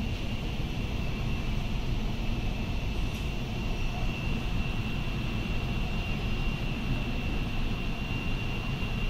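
Dubai Metro train running at speed: a steady low rumble with a thin, steady high whine over it.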